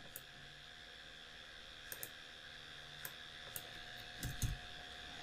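Scattered computer mouse clicks, faint, with a few keyboard keystrokes near the end, over a steady low background hiss.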